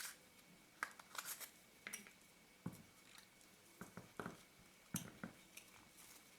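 Faint, scattered small clicks and scrapes of a metal spanner tool working the front retaining ring of a Leica Elmarit-M 135mm f/2.8 lens as the ring is unscrewed.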